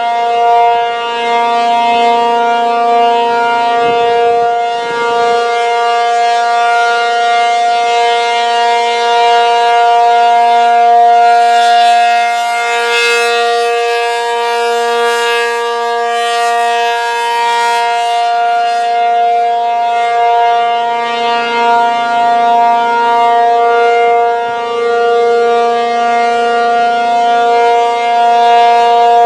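ACA P-50 outdoor warning siren sounding the steady Alert signal: two steady pitches held together with their overtones, with no rise or fall in pitch. The loudness slowly swells and eases.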